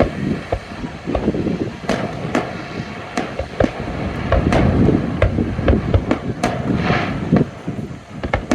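Fireworks going off in quick succession: many sharp bangs and crackles at irregular intervals over a steady low rumble.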